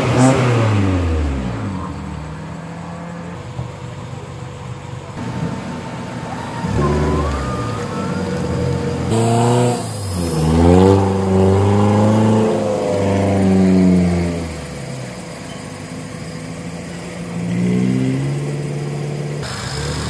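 Off-road 4x4 engine revving hard in repeated bursts, the pitch climbing and dropping back several times.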